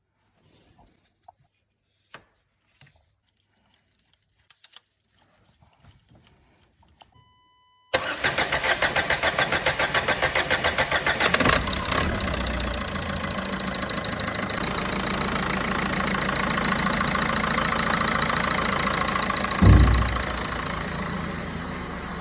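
Renault 1.5 dCi four-cylinder common-rail diesel engine being started: a brief beep, then the starter cranks it in a quick even rhythm for about three and a half seconds before it catches and settles into a steady idle. A single short low thump comes about twelve seconds after it starts.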